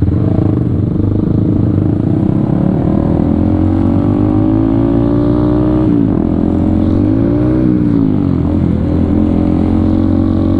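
Honda CBR150R's single-cylinder engine pulling under acceleration, its pitch rising steadily for about six seconds. The pitch drops sharply at a gear change, rises and falls once briefly, then settles to a steady cruise.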